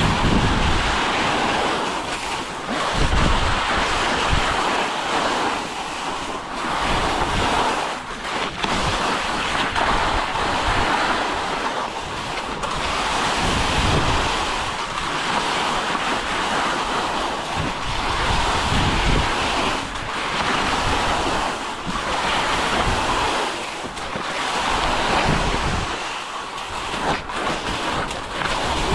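Wind buffeting the microphone: a rushing hiss that swells and eases every few seconds, with low rumbling gusts.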